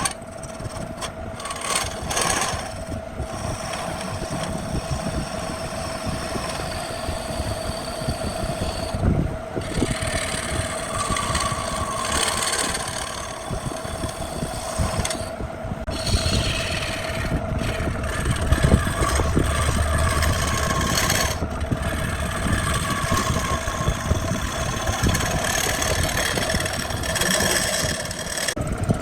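Wood lathe running with a steady hum while a tool works the spinning wood-and-epoxy blank. The sound breaks off briefly several times.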